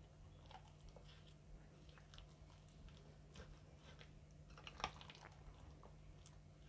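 Faint soft squishing and small clicks of roasted, mashed brinjal being mixed with chopped tomato, onion, green chillies and spices for a raw bhurta, with one sharper click about five seconds in.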